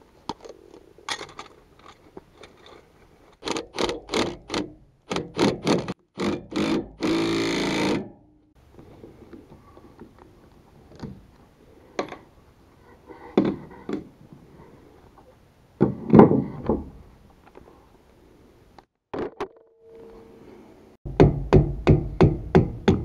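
Clanks and knocks of tools on a trailer's electric drum brake assembly, heard in short separate bursts, with a loud rattling burst about seven seconds in. Near the end comes a quick run of about eight hammer blows.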